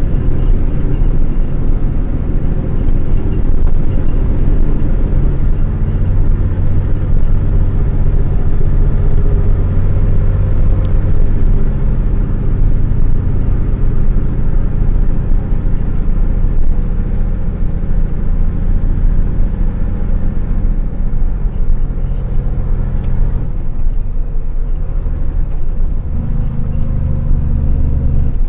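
Logging truck's diesel engine running steadily while driving, a loud low drone with road and cab noise. About three quarters of the way through the engine note drops and then settles at a new pitch.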